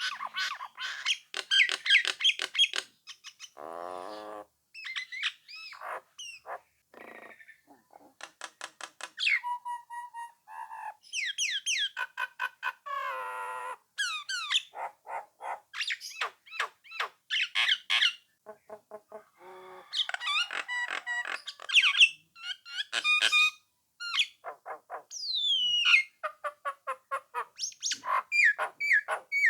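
A jalak nias, a myna, in full song: a long, varied run of rapid clicks, rising and falling whistles and harsh raspy calls with short gaps between phrases. This is a lure recording meant to set rival birds answering and chattering.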